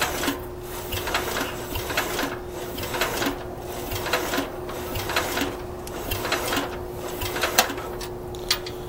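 Bolens 1050 tractor's Wisconsin engine being turned over by its starter, cranking in an even rhythm of about two strokes a second without catching.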